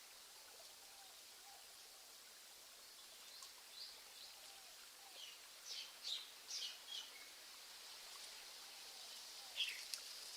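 Faint nature ambience: a soft steady hiss of water, rain or a stream, with small birds chirping in short calls, a cluster about a third of the way in and one more near the end.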